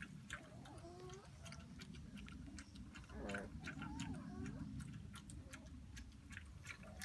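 Soft snoring: a continuous low rumble with faint whistling, wavering squeaks about half a second in and again around three to four seconds in, over scattered light clicks.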